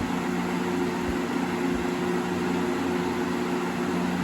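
Holmes HBF2002A 20-inch box fan running on high speed: a steady, pretty loud rush of air over a constant motor hum.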